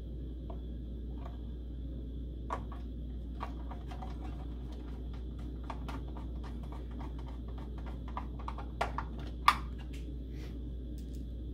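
Small scattered clicks and taps of a screwdriver and metal parts being handled as a drive is screwed into its metal mounting bracket, coming more often in the second half, with one sharper click near the end, over a steady background hum.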